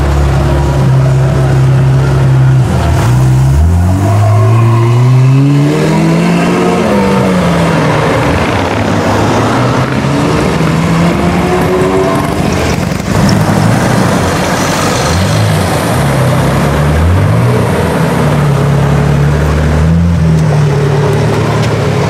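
Pagani Zonda F's Mercedes-AMG V12 idling, then revving hard and pulling away about three seconds in. Its pitch climbs steeply and then drops back. Further revs rise and fall later on.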